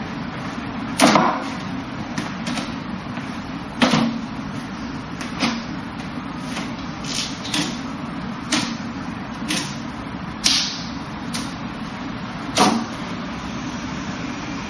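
Forearms and hands striking the wooden arms and trunk of a Wing Chun wooden dummy: sharp knocks at irregular spacing, about ten in all, a few much louder than the rest, over a steady background hum and hiss.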